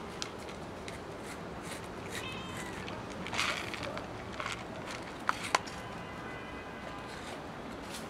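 Stray cats meowing while they eat dry food from plastic tubs: a short meow about two seconds in and a fainter one later, over a steady hiss of wind. Just after the midpoint come two sharp clicks, the loudest sounds.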